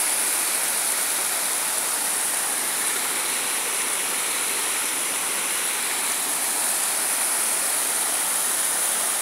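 Waterfall and mountain stream rushing over boulders: a steady, even rush of water that does not change.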